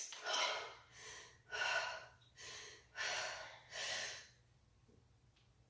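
A woman's hard, breathy gasps while she presses a heavy barbell on a bench: about six quick breaths in and out over four seconds, under strain.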